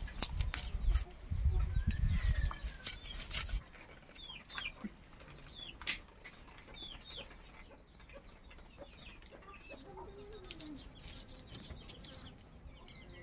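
Fish being scaled with a large knife: a quick run of scraping and knocking strokes for the first three and a half seconds, then domestic chickens clucking softly with short calls.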